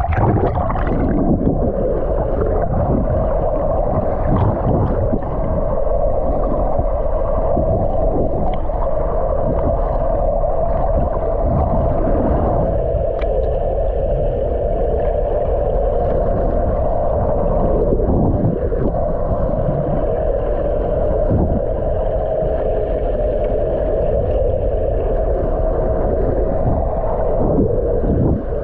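Muffled underwater noise heard through a submerged camera's housing: a steady low drone with dense water rumble and irregular sloshing swirls.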